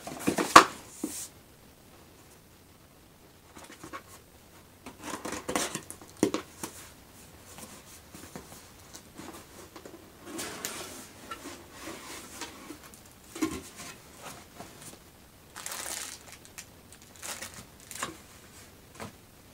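A cardboard shipping box being opened and handled, with scattered knocks and rustling, and crinkling of the packaging as the contents are lifted out. The loudest knocks come in the first second.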